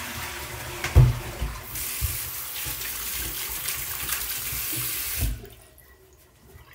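Wall-hung toilet flushing: water rushing through the bowl, cutting off suddenly about five seconds in. A thump about a second in.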